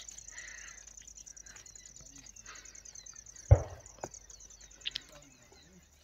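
Crickets trilling steadily in a high, even pulse. A single dull thump comes about three and a half seconds in.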